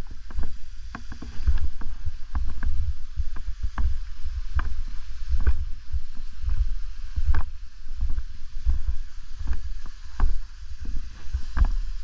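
Footsteps crunching through packed snow at a walking pace, an irregular step every half second or so, over a heavy low rumble of wind and movement buffeting the body-worn camera's microphone.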